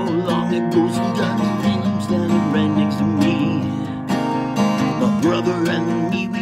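Acoustic guitar strummed and picked as song accompaniment, with wordless singing over it at times.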